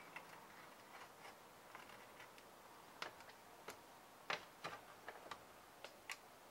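Light, irregular clicks and taps of a chip-extractor tool being fitted around a socketed ROM chip on a Commodore 64 motherboard, the sharpest click about four seconds in.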